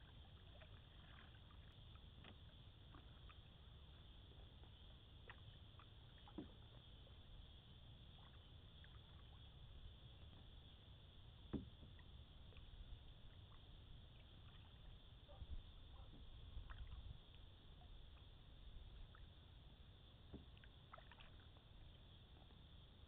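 Near silence from a canoe under way: faint scattered knocks and drips of a paddle working the water and touching the hull, with one sharper knock about halfway through, over a low steady rumble and a thin high hiss.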